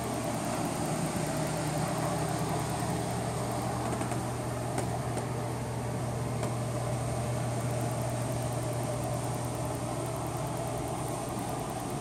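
Steady mechanical hum with an even rushing-air noise from an unseen running appliance, and a light tap about five seconds in.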